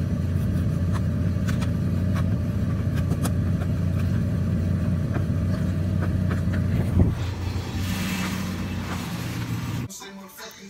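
Steady low rumble of a car on the move, with scattered light clicks and a single thump about seven seconds in; it cuts off suddenly shortly before the end.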